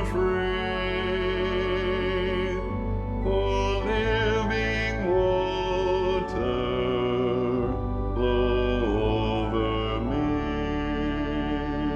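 Choral music: voices hold long chords with vibrato, moving to a new chord every two to three seconds, over a sustained low accompaniment.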